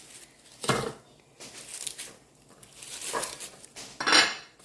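Four or five short knocks and rustles of plates and utensils being handled, the loudest near the end.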